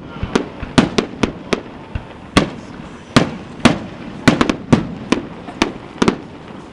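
Aerial fireworks bursting in rapid, irregular succession: some fifteen sharp bangs, several in quick clusters, each trailing off in a short echo.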